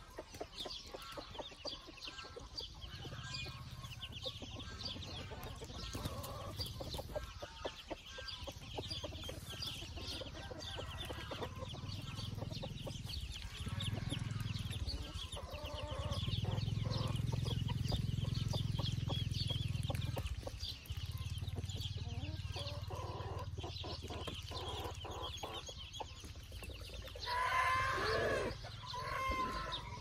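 Many ducklings peeping continuously in a dense, high chatter, over a low steady hum. A louder, lower call from a larger bird stands out near the end.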